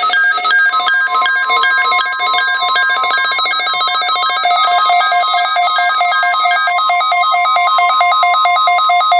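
A rapid pulsing electronic alarm of several tones, with a steady NOAA Weather Radio warning alarm tone (1050 Hz) starting about a second in and held under it until near the end. It is the weather radio's routine test of its warning alarm signal and receivers.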